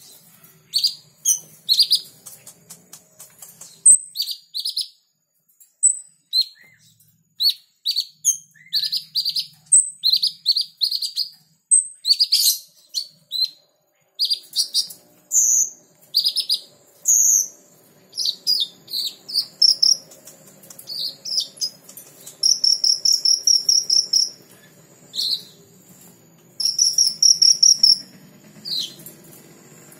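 Caged kolibri ninja sunbird chirping: a fast, uneven run of short, high chirps and twitters that grows busier about halfway through. Two longer high buzzing trills come in the later part, one about two-thirds of the way through and one near the end.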